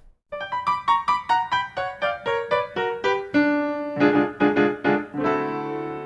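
Background music on piano: a quick run of single notes, about four a second, then held chords.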